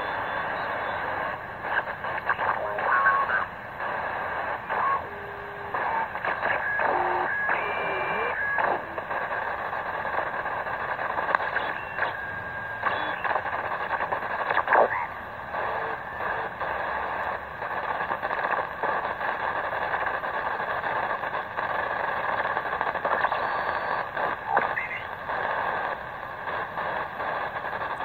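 Tecsun PL-600 shortwave receiver in SSB mode being tuned across the 20-metre amateur band: a steady hiss of band noise, with brief whistles and snatches of distorted sideband speech passing as the frequency changes, most of them in the first ten seconds.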